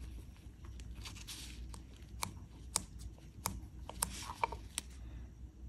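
A blue nitrile glove being pulled on by hand: soft crinkling with a scatter of sharp clicks and snaps, thickest about four seconds in.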